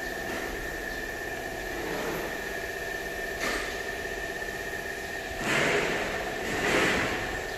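A steady mechanical hum with a thin high-pitched whine. About three and a half seconds in, and twice more near the end, it is overlaid by a louder rushing noise.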